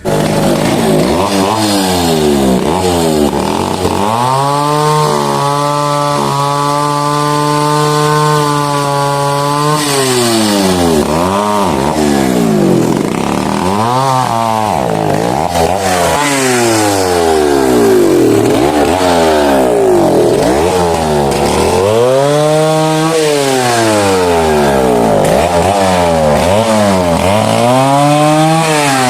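Two-stroke chainsaw engine running loud, revved up and down again and again, its pitch held high for about four seconds some five seconds in.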